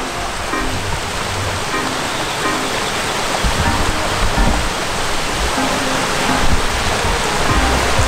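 Background music with short repeated notes and a low beat, over the steady rush of a shallow mountain stream.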